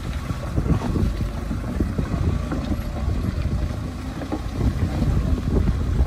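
Diesel engine of a two-axle truck heavily loaded with sugarcane running under load as it crawls through deep mud and water-filled ruts, with wind rumbling on the microphone.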